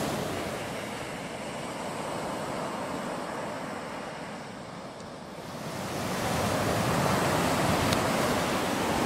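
Ocean surf washing onto a beach, a steady hiss that ebbs and then swells again about halfway through.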